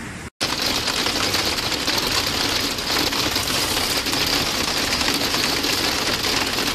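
Hail pelting down hard: a loud, dense rattle of countless rapid impacts that starts abruptly a moment in and keeps up evenly.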